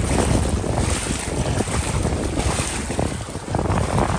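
Strong wind buffeting the microphone in uneven gusts, over water sloshing and lapping around wading legs.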